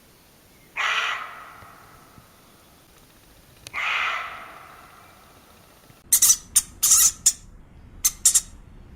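Two harsh, drawn-out bird calls about three seconds apart, then a quick run of short, sharp, high calls.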